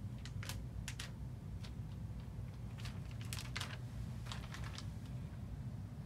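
Irregular light clicks and taps, several in quick clusters, over a steady low hum.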